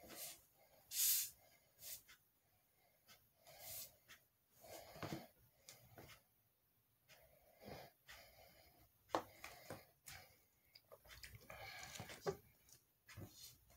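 A faint run of short hissing puffs of breath and small handling clicks, then a longer breath about eleven seconds in: a latex party balloon being blown up by mouth.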